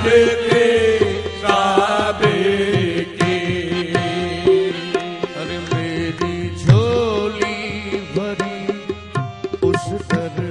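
Qawwali: a male lead singer with harmonium and tabla accompaniment. The voice bends and glides through drawn-out phrases over steady sustained tones and quick tabla strokes.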